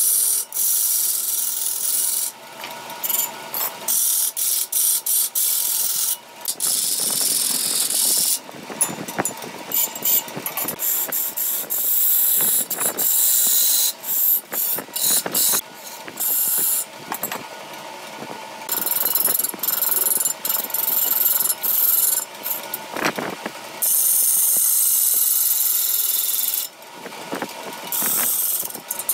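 Turning tool cutting into a large ebony root blank spinning on a big wood lathe. It makes a rough scraping noise with a high hiss of flying shavings, in repeated bursts of one to several seconds with brief breaks between them.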